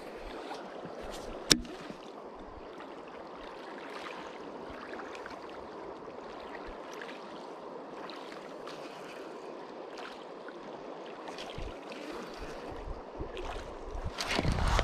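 River current washing and rippling over a shallow gravel shore, a steady gentle noise. A single sharp click comes about a second and a half in, and a louder low rumble builds near the end.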